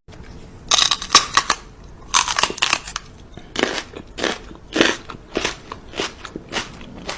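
Repeated crunching and crackling: two dense crackly bursts in the first three seconds, then a steady run of single crunches a little under two a second.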